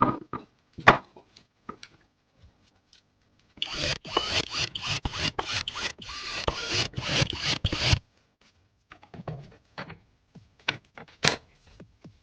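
Hands handling PC parts and packaging: a couple of sharp clicks, then about four seconds of dense rubbing and scraping, then scattered light clicks and taps.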